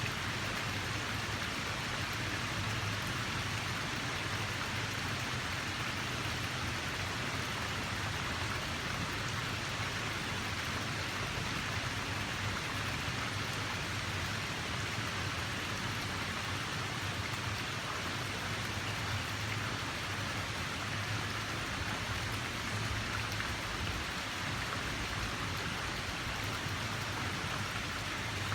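Water rushing steadily: an even, unbroken hiss that holds the same level throughout.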